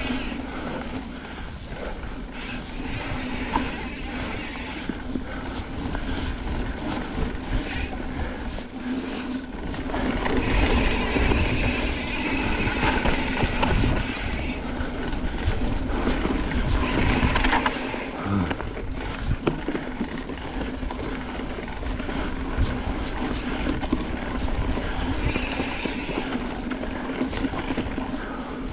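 Mountain bike being ridden along a dirt and sand trail: tyres rolling, and the bike rattling and knocking over the bumps, with a low rumble throughout. There are brighter, hissier stretches at times.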